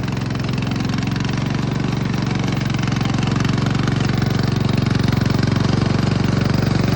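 Remote-control lawn mower's 7.5-horsepower engine running steadily while mowing, with a fast, even chugging pulse that grows slightly louder toward the end.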